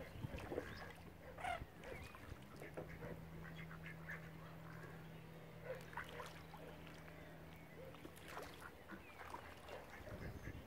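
Ducks quacking: scattered short calls, some close together, with pauses between them.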